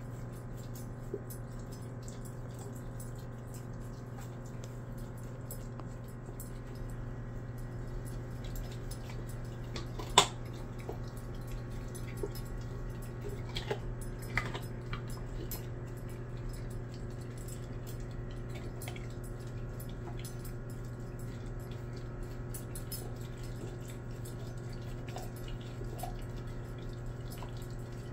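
A German Shepherd licking and mouthing a raw chicken drumstick in a stainless steel bowl: faint wet smacking and small clicks, with a sharp clink of tooth or bone on the steel about ten seconds in and a few lighter ones a few seconds later. A steady low hum runs underneath.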